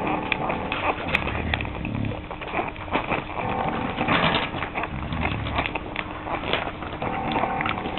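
Week-old puppies nursing: soft grunts, squeaks and suckling clicks come irregularly throughout.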